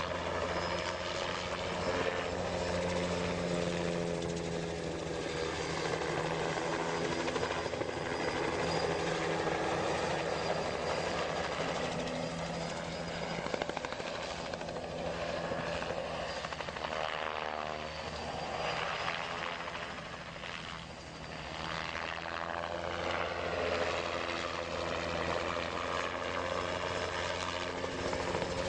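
Helicopter flying low: a steady drone of rotor and engine, with a sweeping change in tone about two-thirds of the way through.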